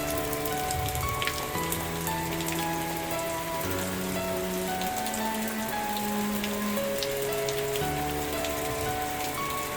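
Steady rain with a scatter of sharp individual drops ticking, under soft background music of slow sustained chords that change every second or two.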